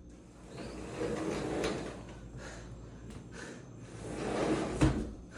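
Rustling, scraping household handling noises, like a drawer or cupboard being worked, swelling twice, with a sharp knock just before the end.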